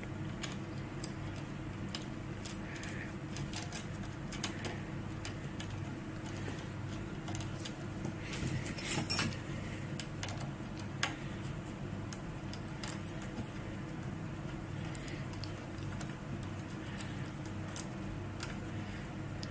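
Light metallic clicks and rattles of a hand tool and brake cable being worked at a scooter's rear disc brake caliper, with a louder burst of clinks about nine seconds in and a single sharp click shortly after. Under them runs a steady low hum.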